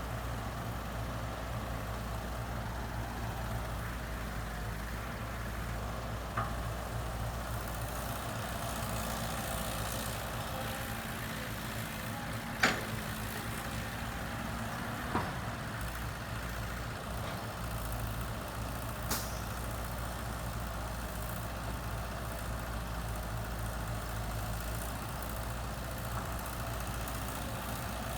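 Heavy-equipment diesel engine running steadily, with a few sharp knocks, the loudest about halfway through.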